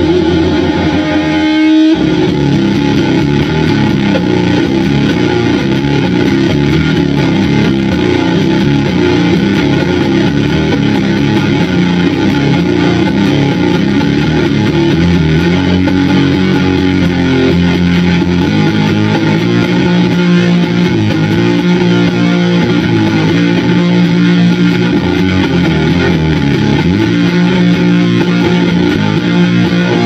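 Electric guitar played through the Doppelganger Effects Brazen Bull one-knob fuzz pedal and an amplifier: thick, heavily fuzzed heavy riffing. A held chord rings out at first, then riffing takes over about two seconds in.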